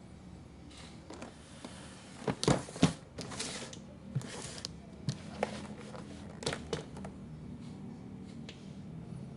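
Packaging and parts being handled during an unboxing: brief rustles with scattered sharp knocks and clicks, the loudest knocks coming about two and a half to three seconds in.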